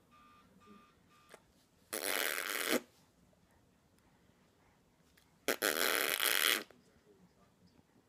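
A baby making two short breathy, sputtering noises, about two seconds in and again about five and a half seconds in, each under a second long.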